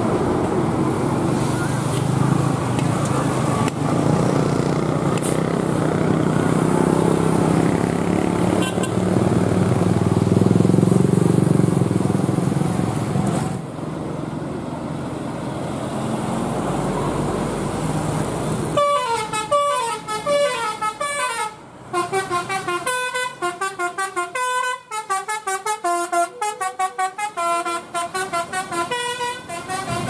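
A steady vehicle rumble, then about two-thirds of the way in a bus's telolet basuri multi-tone horn starts playing a quick tune of short notes that runs on to the end.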